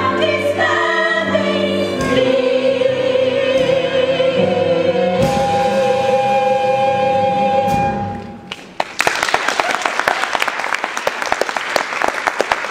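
Cast singing together in a musical-theatre number, ending on a long held note. The singing stops about eight seconds in, and audience applause breaks out a second later.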